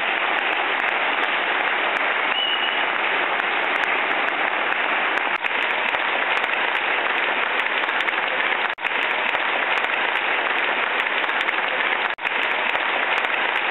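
A large ballroom audience applauding: dense, steady clapping from many hands, cut off for an instant twice in the second half.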